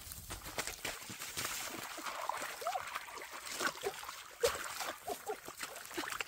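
Shallow water trickling and sloshing, with many sharp clicks and short rising-and-falling chirps.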